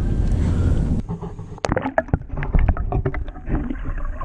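Wind buffeting the microphone for about a second, then it cuts off suddenly to a string of sharp clicks and knocks from gear being handled in a fishing boat.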